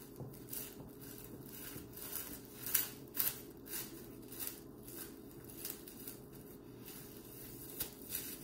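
Plastic cling film crinkling and rustling as it is wrapped around a ball of pastry dough, in irregular crackles that are loudest about three seconds in.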